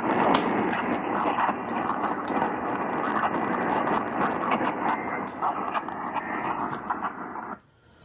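Radio static from a distant station being received: a steady hiss with frequent crackles, cutting off suddenly about seven and a half seconds in.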